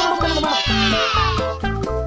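Upbeat children's background music with a steady beat, with a high sweep falling in pitch over the first second and a half.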